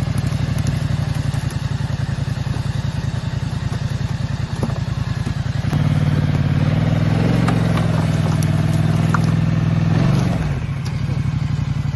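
ATV engine running at a low steady speed, then revving up and pulling harder about six seconds in as it tows a sunken snowmobile out of the water on a rope. It eases back down near the end.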